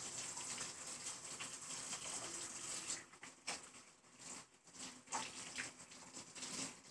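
Faint rubbing and handling noise from a camera moved around inside a raw turkey's cavity. It starts as a soft, even hiss and thins after about three seconds into a few scattered soft rubs.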